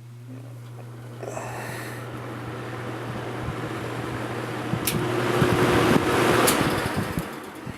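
Edison two-speed 20-inch box fan running, a steady motor hum under a rush of air from its five plastic blades that builds as it spins up. The speed switch clicks about five seconds in and again about a second and a half later; after that the hum stops and the air rush winds down as the blades coast.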